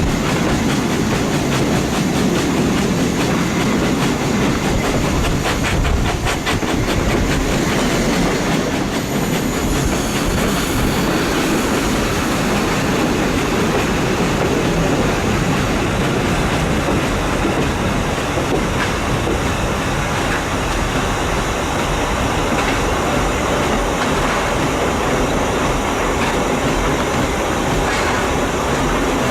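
Heritage passenger train hauled by the steam locomotive Furness Railway No 20, running slowly at about 15 mph with a steady rumble of wheels on the rails.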